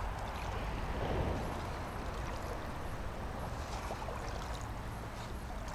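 Shallow water sloshing and trickling, a steady watery noise that swells briefly about a second in.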